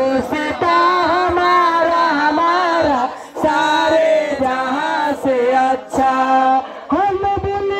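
A man singing into a hand-held microphone: long held notes that bend in pitch, in phrases with short breaks about three seconds in and again near the end.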